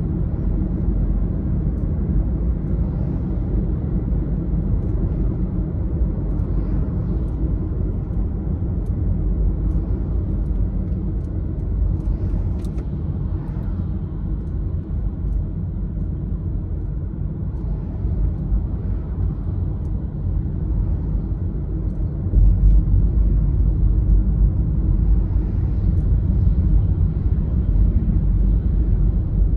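Steady low rumble of a car driving, mostly tyre and road noise with the engine. It grows louder about three-quarters of the way through.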